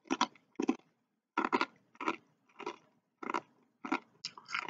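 Person chewing crunchy rolled tortilla chips (Takis-style): a steady run of crisp crunches, about two a second.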